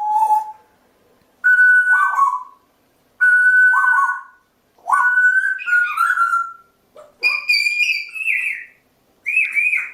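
African grey parrot whistling a series of clear notes, each about a second long with short gaps. The later phrases are higher and warble up and down.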